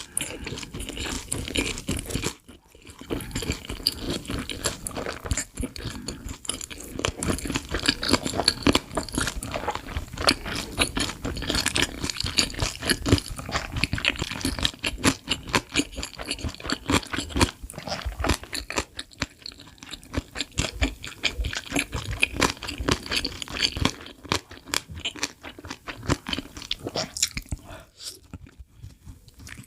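Close-miked eating sounds: chicken with melted cheese sauce being bitten and chewed, a dense run of crunches and mouth clicks with a short pause about two and a half seconds in.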